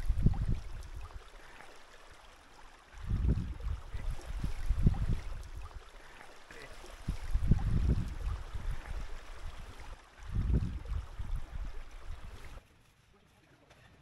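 Wind buffeting the camera microphone in four low gusts a couple of seconds apart over a steady hiss. About twelve and a half seconds in it cuts to a much quieter outdoor hush.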